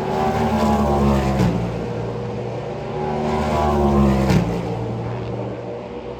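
Race car engine accelerating hard, rising in pitch, with two quick upshifts about a second and a half and about four seconds in, each a sudden drop in pitch before it climbs again.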